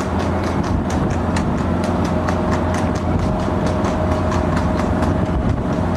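Steady road and engine rumble from a moving vehicle, with a fast, even clicking running over it.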